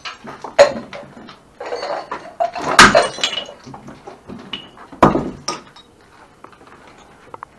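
Clatter of broken dishes and glass being handled, with three sharp knocks; the loudest, about three seconds in, rings briefly.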